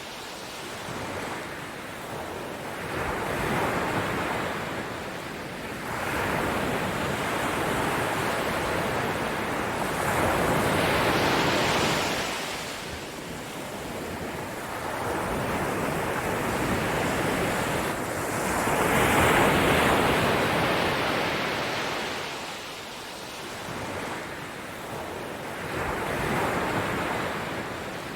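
Ocean surf: waves breaking and washing back, the rush of water swelling and easing every few seconds.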